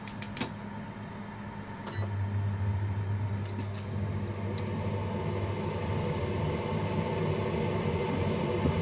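Steady low mechanical hum from kitchen appliances, getting louder about two seconds in, with a few light clicks a little later.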